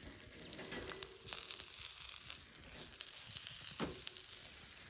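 Faint sizzling with irregular small crackles, typical of food cooking over a campfire.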